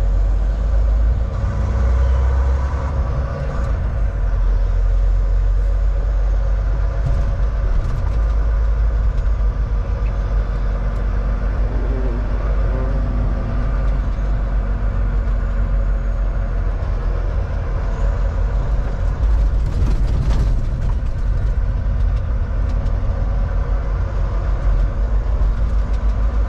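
Cab-interior noise of a Volvo semi-truck on the move: its diesel engine drones steadily under road and tyre noise on wet pavement, with a brief hiss about twenty seconds in.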